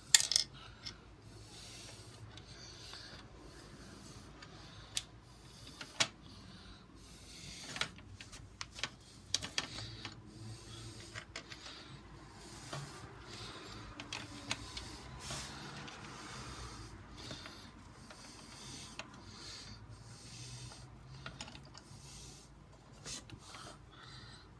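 Scattered clicks, taps and rubbing of hard plastic and metal parts being handled: a CPU cooler's mounting bracket and backplate being fitted to a motherboard, with the sharpest click just after the start and a cluster of knocks a few seconds later.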